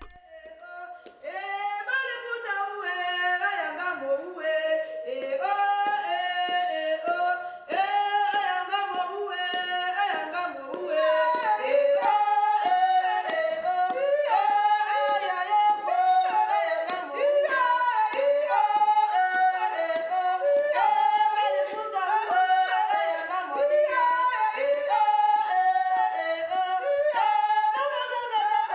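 Several voices singing in interlocking yodelled parts, without instruments, in the polyphonic style of central African forest hunter-gatherers such as the Baka and Aka. Short phrases leap quickly between high and low notes, and the singing grows fuller about a third of the way in.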